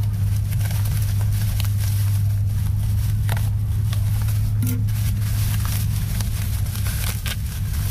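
A steady low hum under sharp clicks of scissors snipping packing tape and the crinkle of a black plastic-wrapped parcel being pulled open.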